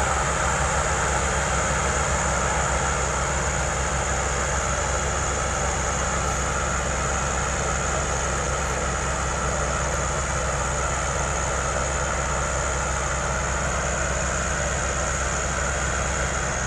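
Rear propeller engines of a Zeppelin NT airship running steadily on the ground. A constant high whine sits over a low engine hum.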